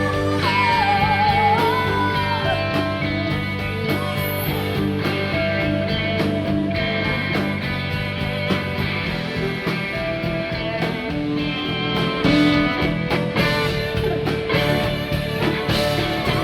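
Rock music with a guitar to the fore, in an instrumental passage without singing.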